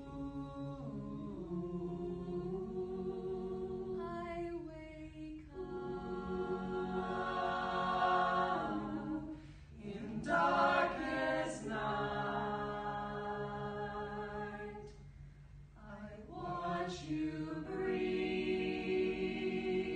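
A small mixed-voice a cappella ensemble of about eight singers sings in harmony, without instruments. The chords are held in long phrases that swell and break off briefly about five, ten and fifteen seconds in.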